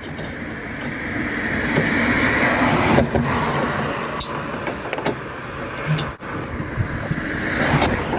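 A road vehicle passing close by: a steady rushing noise that swells over the first few seconds, eases, and builds again near the end. A few light metallic clicks sound over it.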